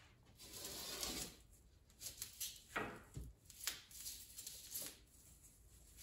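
Razor knife scoring a sheet of R-Tech rigid foam insulation board along a metal drywall T-square: a run of short, faint scratching strokes as the blade is drawn through the foam.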